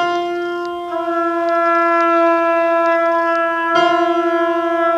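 Two wind instruments holding the same sustained note slightly out of tune with each other, so the tone wavers in fast, regular beats, a 'wah, wah, wah' pulsing. The note is re-attacked a little before the end, where the beating is clearest.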